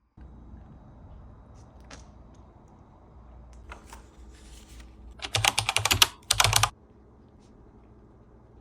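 A quick run of sharp clicks about five seconds in, in two short clusters, over a low steady hum.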